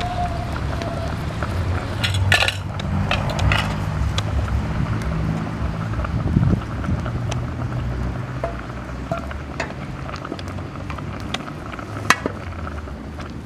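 Pot of soup cooking over a wood fire: a steady low rumble under scattered clinks and crackles, with a small cluster a couple of seconds in and one sharp click near the end.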